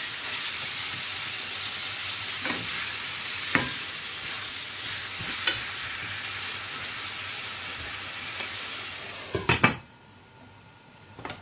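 Chicken and sliced onions sizzling as they fry in a stainless steel pan, with a wooden spoon knocking and scraping against the pan a few times. Near the end a glass lid clatters onto the pan, and the sizzle turns muffled and much quieter.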